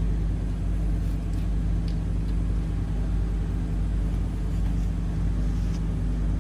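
The ship's onboard engine running steadily: a constant low hum with an even drone and no change in pitch.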